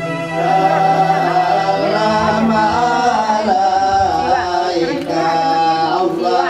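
Music with a voice singing a wavering, ornamented melody.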